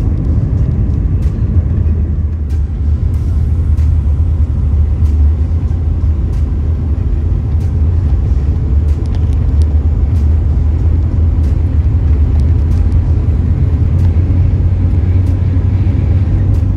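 Road and engine noise heard from inside a moving car's cabin: a steady, loud low rumble, with faint clicks here and there.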